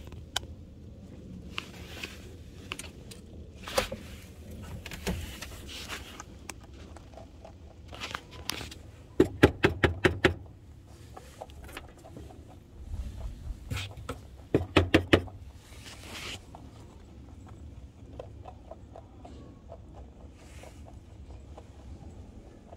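A pet lop-eared rabbit moving about close up, with scattered rustles and scuffs. Twice there is a quick run of sharp taps or clicks: about ten seconds in, and again at fifteen.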